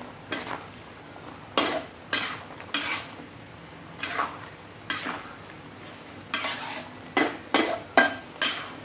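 Metal spatula scraping and clanking against a metal wok in irregular strokes, about two a second, as pork belly is stirred in its seasoning liquid to dissolve the sugar, salt and seasonings.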